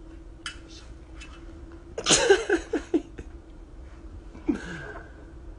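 Brief nonverbal vocal outbursts from people close to a phone microphone: a loud cluster about two seconds in and a shorter one about four and a half seconds in. A faint steady hum runs underneath.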